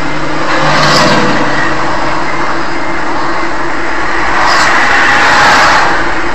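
A car driving along: a steady loud rush of tyre and engine noise, with two short clicks, about a second in and about four and a half seconds in. The sound then cuts off abruptly.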